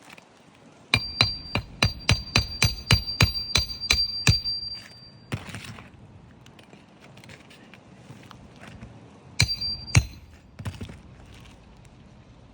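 Hammer driving roofing nails into asphalt shingles: a quick run of about a dozen strikes, about four a second, each with a metallic ring, then a few more strikes near the end.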